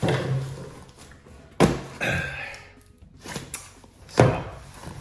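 Thuds of a cardboard box being grabbed, handled and set down on a wooden table: a sharp knock about a second and a half in and the loudest thud a little after four seconds.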